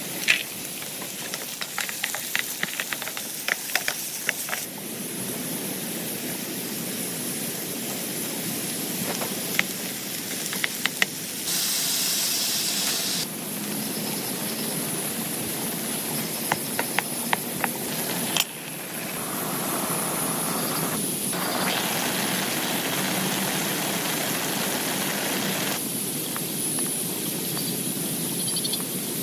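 Heavy rain falling on a tent: a steady hiss of rain with sharp ticks of single drops striking the fabric in places. The texture and loudness change abruptly several times.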